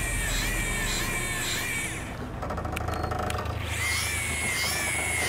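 Electric jigging reel's motor whining as it winds in rhythmic jerks, its pitch wavering in a pulse about twice a second; about two seconds in the whine drops out briefly, then resumes. A low rumble runs underneath.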